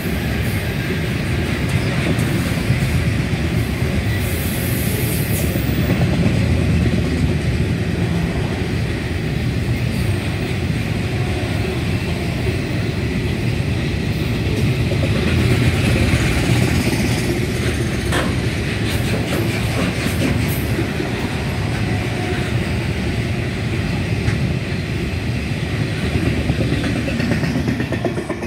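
Container wagons of a long freight train rolling past: a steady rumble of steel wheels on the rails, with occasional short clicks.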